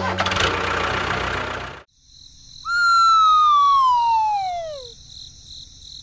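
A noisy burst that cuts off abruptly, then a single whistle sliding down in pitch for about two seconds, like a cartoon falling sound effect, over a faint steady high tone.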